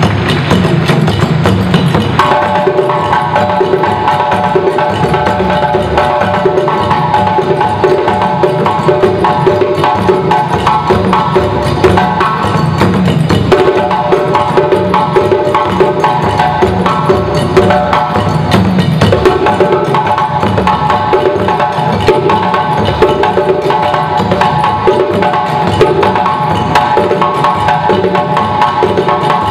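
West African drum ensemble, led by djembe, playing a fast, steady rhythm. About two seconds in, a repeating pitched part of several ringing notes joins the drumming and continues over it.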